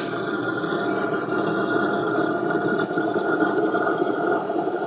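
A propane GrillGun torch blows a steady flame into the kindling of a smoker's firebox to light the fire. It makes a constant, even rushing noise that does not change.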